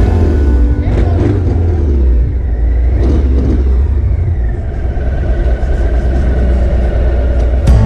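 Motorcycle engine running at road speed, a loud, steady, deep drone.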